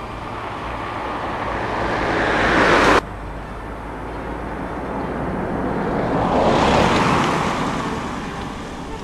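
Cars passing on a road, a rush of tyre and engine noise. The first swells and cuts off suddenly about three seconds in. A second swells past and fades away.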